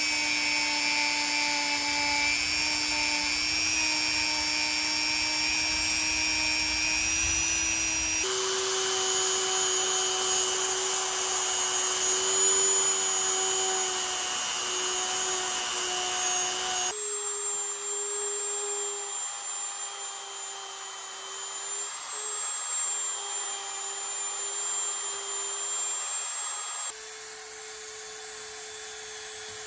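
Handheld rotary tool spinning a felt polishing wheel with polishing compound inside the exhaust port of a two-stroke engine cylinder: a steady motor whine that shifts up slightly in pitch three times.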